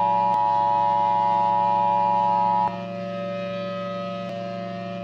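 Electronic emergency-alert tones. A loud steady two-tone alarm cuts off suddenly a little past halfway, leaving quieter steady lower tones sounding on.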